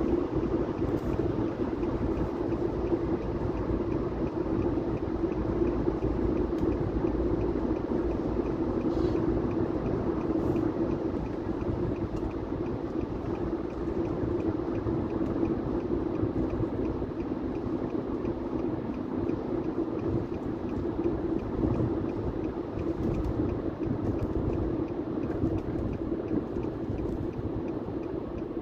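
Steady road noise of a car driving at highway speed, heard inside the cabin: tyre noise on the road with a constant low hum.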